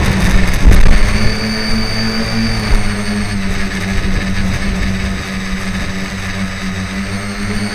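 Tricopter's electric motors and propellers running with a steady multi-tone hum, with wind buffeting the microphone as low rumbling gusts, strongest about a second in.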